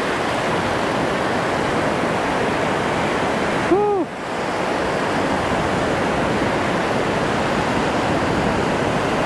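Shallow surf washing steadily over a sandy beach. About four seconds in, a short tone rises and then falls.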